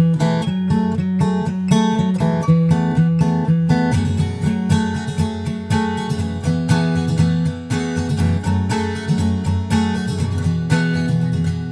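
Background music: acoustic guitar playing in a steady rhythm with plucked and strummed notes.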